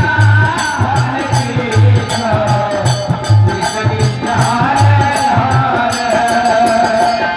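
Kirtan music: a hand drum keeps a steady, repeating beat under jingling percussion strokes, with a wavering melody line on top.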